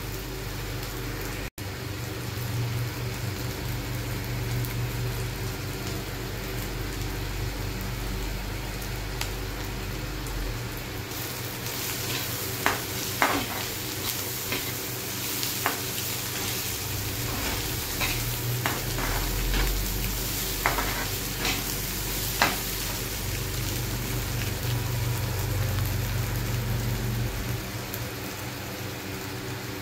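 Egg bhurji sizzling in a frying pan while a metal slotted spatula stirs and scrapes through it. Sharp clicks of the spatula striking the pan come now and then through the middle stretch.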